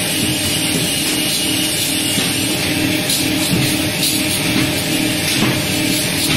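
Plywood veneer paving line running: the machine's motor and conveyor give a steady mechanical hum under a loud, even hiss.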